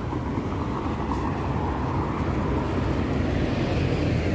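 Road traffic going past close by: a steady rumble of engines and tyres that grows louder near the end as vehicles approach.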